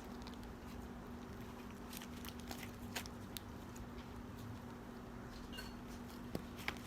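Faint, scattered soft clicks and squishes of slime being worked by hand with lotion mixed in, over a steady low hum.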